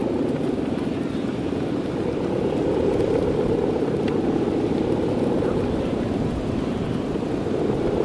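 Steady droning hum of the guangan, the humming bow strung across the head of a large Balinese kite, vibrating in strong wind.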